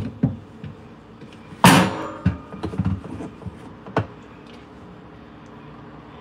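Kitchen cupboard being opened and things handled on its shelf: a loud clatter with a brief ring about a second and a half in, then several light knocks and one sharp click near four seconds in.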